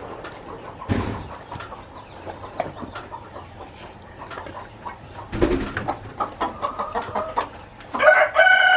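Chickens clucking among scattered small clicks and a couple of thumps, then a rooster starting a long crow near the end, its pitch falling slowly.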